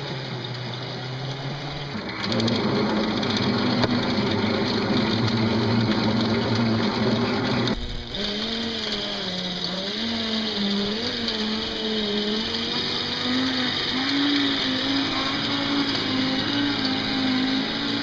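Homemade solar bulldozer's 1.5 horsepower electric drive motor running through its gears and sprockets: a steady whine that steps up in pitch about two seconds in, changes again near the middle, then wavers up and down with speed and load.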